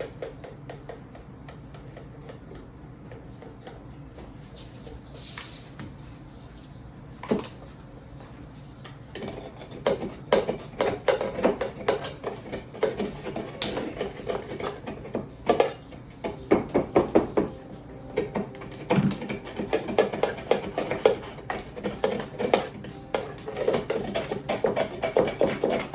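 A spoon beating and scraping in a mixing bowl, hand-mixing butter and sugar: rapid, irregular clacks that begin about nine seconds in, after a quieter stretch broken by a single knock.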